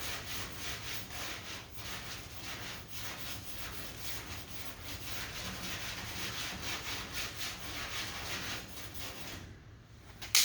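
Sandpaper on a hand sanding block rubbed back and forth over lacquer primer on a car body panel, about two strokes a second, stopping near the end: block-sanding the primer over a bondo dent repair to show up the low spots.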